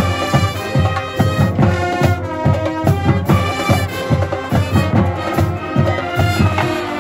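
Marching band playing loudly in the stands: trumpets, saxophones and sousaphones carry the tune over a steady bass-drum beat.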